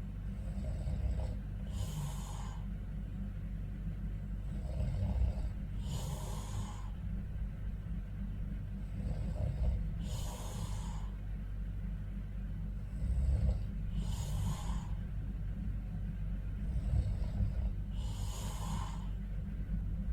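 A sleeping man snoring in a slow, even rhythm, about one breath every four seconds: each rasping snore is followed by a breathy hiss. A steady low hum runs underneath.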